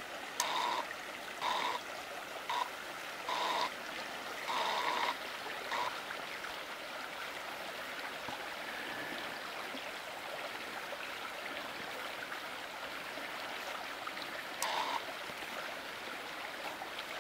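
Small stream flowing over a shallow gravel spawning bed, a steady rush of water. Short pitched calls sound several times in the first six seconds and once more near the end.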